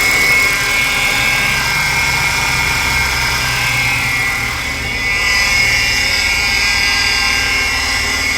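2012 Ford Fusion engine running with a steady high-pitched whine from the poly-V accessory belt's pulleys, a noise of worn pulleys that need replacing. The whine fades briefly about four and a half seconds in, then returns.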